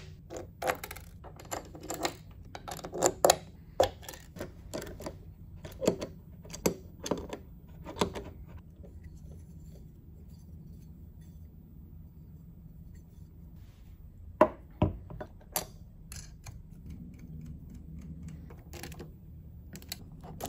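Metal clinks and knocks of machined aluminum parts, small bolts and washers being handled and fitted together on a workbench: many light taps and clicks early on, a quiet stretch, then two sharp knocks past the middle and a few more small clicks.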